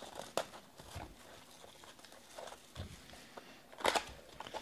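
Clear plastic shrink wrap crinkling as it is peeled off a sealed trading-card box: scattered light crackles, with a louder burst of crinkling near the end.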